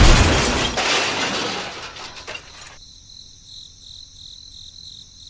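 A loud crash-like noise at the start that dies away over about two seconds. It is followed by faint, evenly pulsing high chirps.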